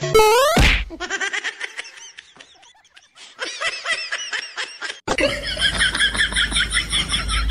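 Bursts of people laughing, opening with a short falling glide in pitch and cutting abruptly about five seconds in to more rapid laughter.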